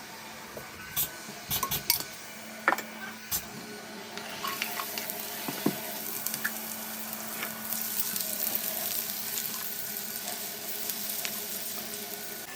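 A few sharp knocks and clinks of a utensil against a pan, then food frying and sizzling in the pan from about four and a half seconds in.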